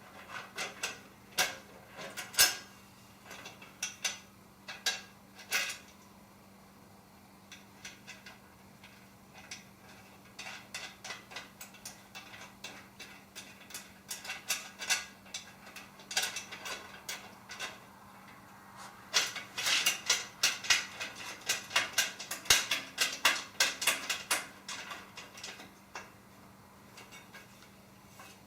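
Small metal hardware clinking: washers, a bar and nuts being fitted onto bolts and the nuts threaded on by hand. Scattered sharp clicks, with a dense run of rapid clicks about two-thirds of the way through.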